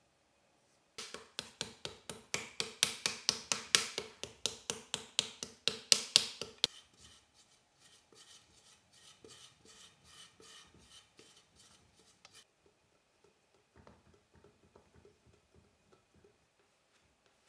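Rapid rasping strokes, about five a second, of a hand scraping and smoothing the inside wall of a hand-built coil pot of leather-soft clay. Loud for the first few seconds, then softer strokes that stop about twelve seconds in, with a few faint ones near the end.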